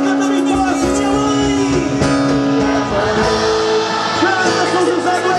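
Music with singing: a voice holds one long note for the first half, then moves to a higher held note over steady accompaniment.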